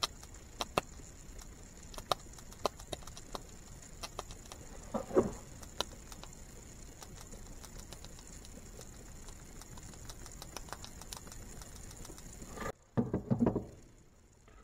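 Ignition coil sparks snapping across an open gap in irregular sharp clicks, as the coil's trigger lead is made and broken to ground by hand to stand in for a distributor igniter. A louder handling noise comes about five seconds in. The snapping stops shortly before the end, where a brief louder handling noise follows.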